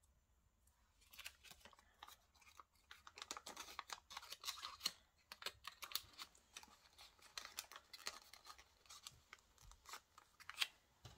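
Faint, irregular crinkling and scratching from about a second in, as a nail polish strip is handled and applied to a fingernail.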